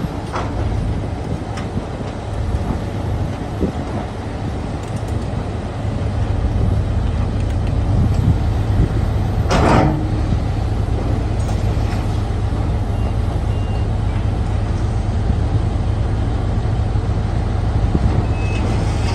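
Bulldozer's diesel engine running with a steady low rumble, growing louder about six seconds in, with one short sharp noise about halfway through.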